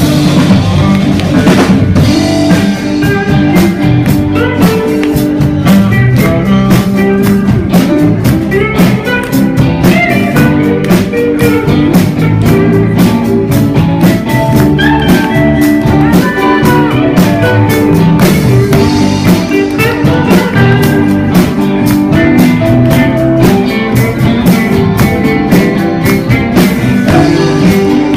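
Live blues-rock band playing an instrumental passage: electric guitar over a drum kit keeping a steady beat.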